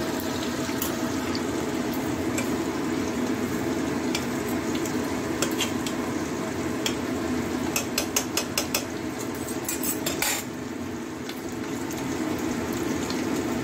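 A metal spoon stirring rice in an aluminium pot, scraping and knocking against its sides with a quick run of clicks about eight seconds in, over a steady rushing noise.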